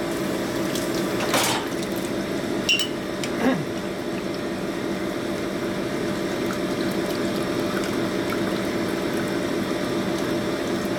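Piston-pin honing machine running steadily while a piston is worked back and forth on its spinning mandrel, honing the wrist-pin bore until the pin will fit, with honing oil flowing. A few light metal knocks come in the first few seconds.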